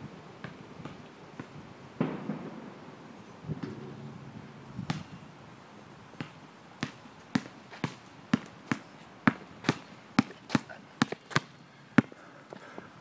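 Basketball dribbled on an asphalt court: a run of sharp bounces that grow louder and come closer together as the ball nears, about two to three a second toward the end, with the loudest bounce near the end.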